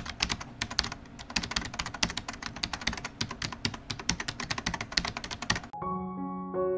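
Rapid, uneven computer-keyboard typing, around ten keystrokes a second, which stops suddenly about five and a half seconds in as soft piano music begins.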